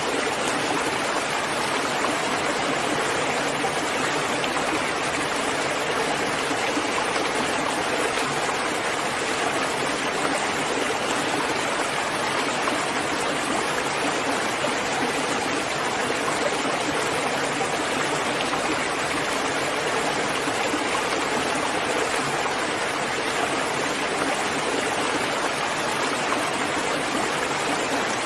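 Steady rainfall, an even hiss of rain falling without a break.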